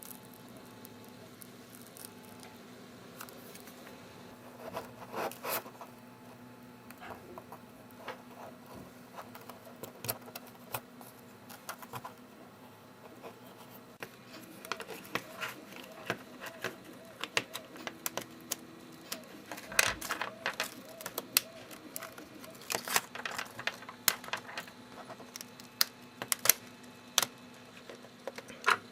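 A pry tool working under a cracked iPod Touch screen to lift it from the frame: irregular small clicks, ticks and scrapes, growing denser and louder about two-thirds of the way through, over a faint steady hum.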